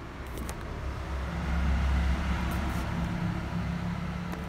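A motor vehicle's engine rumbling past, growing louder until about two seconds in and then easing off, with a few light clicks.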